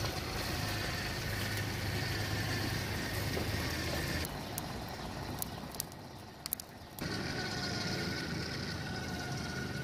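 Small 12 V DC gear-reduction motor running steadily with a low hum and a faint whine as it turns a roasting skewer. About four seconds in, the hum drops away for a few seconds while a handful of sharp clicks sound, then the hum comes back.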